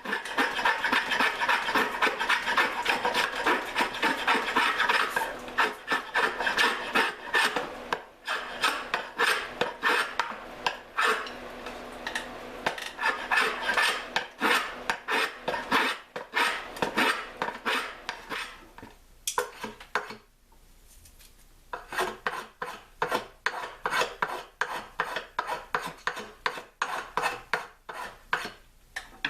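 Hand file rasping back and forth on a maple hammer handle, shaping and slimming the wood. Fast, close-packed strokes at first, then more separate ones. A pause of about two seconds comes two-thirds of the way through, before the strokes start again.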